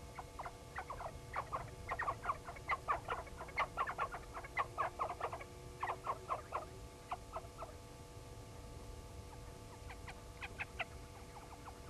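Blacksmith lapwing calling: a rapid, irregular series of short, sharp calls, several a second, for about seven seconds, then a brief second run about ten seconds in.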